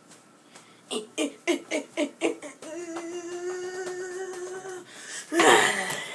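A boy's voiced mock-fight noises: about six quick, choppy grunts about a second in, then one long steady hummed note, then a loud, rough shout near the end.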